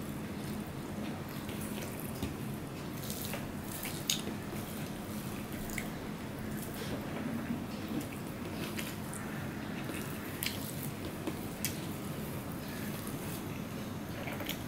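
Close-up wet eating sounds: rice mixed by hand on a steel plate and chewed with the mouth open, giving soft squishes and small scattered clicks and smacks.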